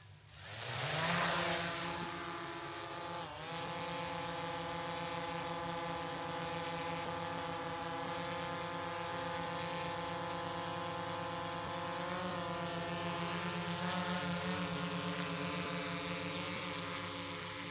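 DJI quadcopter drone's propellers spinning up, the pitch rising over about a second, then settling into a steady multi-tone whine as it hovers. The pitch wavers briefly twice.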